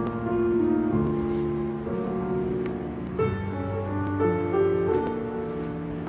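Instrumental music from a CD, played through Boston Acoustics M350 loudspeakers as a sound test: slow, held chords that change about once a second.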